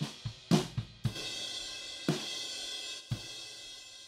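Recorded drum kit playing back through a close room microphone: kick and snare hits over a steady wash of cymbals. The track runs through hard 1176 all-buttons-in style compression (Slate Monster) that is being switched in and out, and the cymbal wash thickens about a second in.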